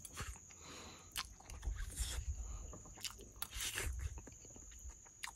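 A person chewing mouthfuls of roasted Maggi instant noodles, with irregular mouth clicks, soft crunches and a few dull thumps.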